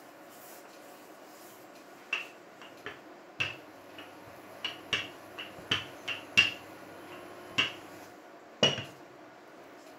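Wooden rolling pin knocking and clacking as it is rolled back and forth over dough on a silicone pastry mat: about a dozen sharp, irregular knocks, starting about two seconds in.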